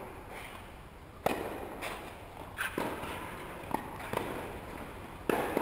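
Tennis ball struck back and forth with rackets in a doubles rally: a series of sharp hits, roughly a second apart.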